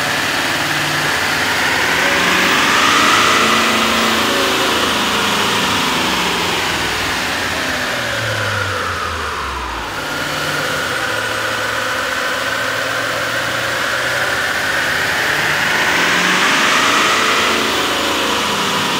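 6.6L Duramax V8 diesel of a Chevy Silverado 2500HD running on a chassis dynamometer in two passes: first with the stock intake, then with an AEM cold air intake. In each pass the engine rises in revs and then falls back. The first pass winds down and the second starts about ten seconds in.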